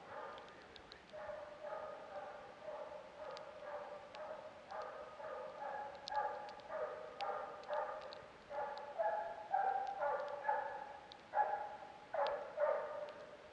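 Finnish hound baying, a steady run of barks about two a second that grows louder over the second half. The dog is giving tongue as it drives a fox on the scent.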